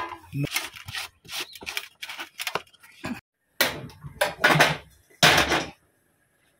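A plastic screw lid being turned onto a plastic jar of dried chillies, a run of small clicks and knocks. Then, about three and a half seconds in, a gas stove burner is lit with a hand lighter and a pan is set on it: three louder rushing noises, followed by a faint steady hiss.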